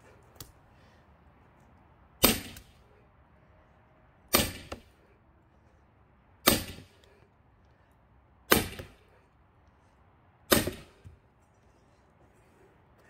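Heavy splitting blows struck into a cracked pine log: five sharp hits about two seconds apart, each ringing out briefly.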